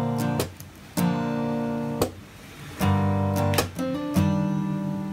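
Background music: guitar chords strummed one at a time and left to ring, a new chord roughly every second with short gaps between.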